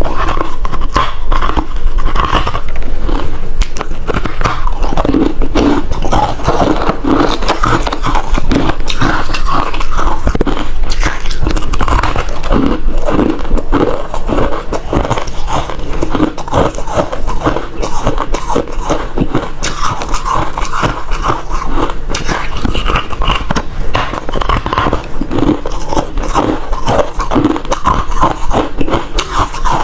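Person crunching and chewing refrozen crushed ice close to the microphone: a dense, continuous run of loud crackling crunches.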